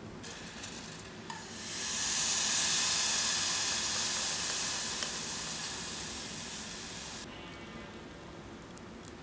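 Fresh cream pouring into an aluminium saucepan on the stove: a loud, even hiss that swells about two seconds in, fades slowly, then cuts off abruptly about seven seconds in.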